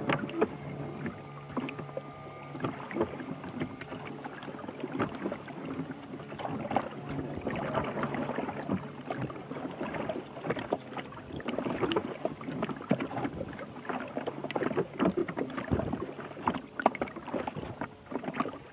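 Water splashing and sloshing in an irregular run of small knocks, the sound of a rowboat being rowed, on the recorded score. A few held musical notes fade out in the first two seconds.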